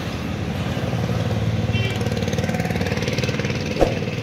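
Road traffic: a small vehicle engine running close by, growing louder about a second in, with one short sharp knock near the end.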